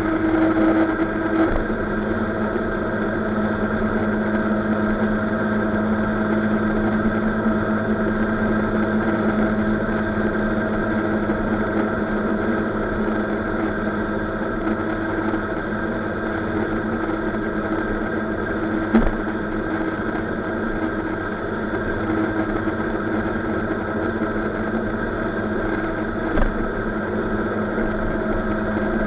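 Maxi-scooter engine droning steadily at highway cruising speed, mixed with wind and road noise. Two short knocks come past the middle, about seven seconds apart.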